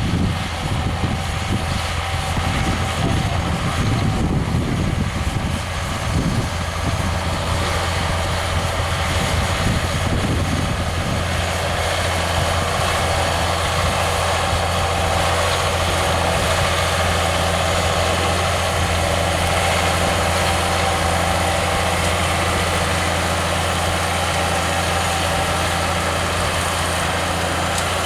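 John Deere 6630 tractor's diesel engine running steadily under load while pulling a four-furrow mouldboard plough.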